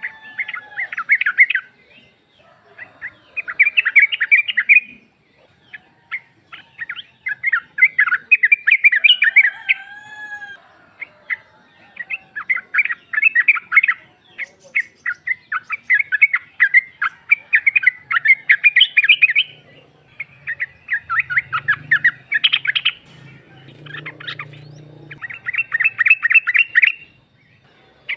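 Yellow-vented bulbul (trucuk) giving bouts of rapid chattering notes, one after another with short gaps. It is offered as a female calling to a male.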